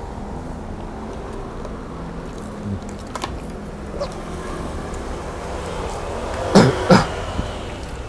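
A man coughs twice in quick succession, about six and a half seconds in. Before that come a few faint clicks of eating.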